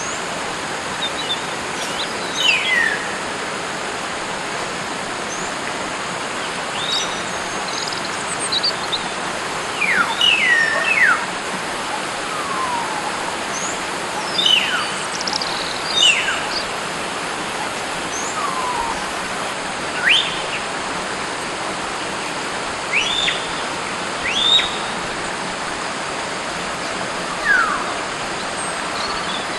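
Wild hill mynas giving short, sharp whistled calls, some sliding down in pitch and some up, every second or two over a steady hiss.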